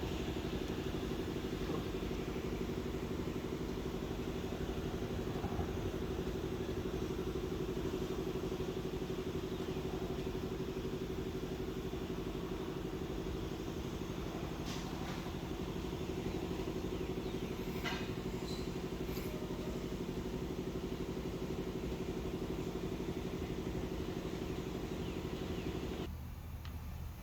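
A steady mechanical hum, like a motor or engine running at an even speed, which cuts off suddenly near the end, with a few faint clicks partway through.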